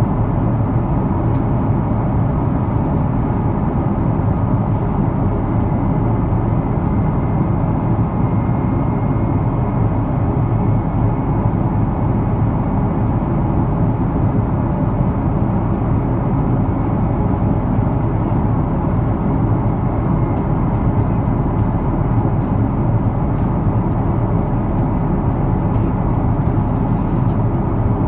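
Steady roar of an Airbus A330-300's Rolls-Royce Trent 700 turbofan engines and the rushing airflow of flight, heard inside the cabin from a window seat over the wing.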